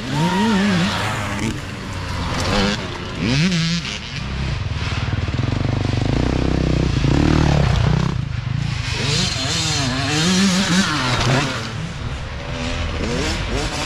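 Several youth dirt bike engines revving up and down one after another, their pitch rising and falling with the throttle.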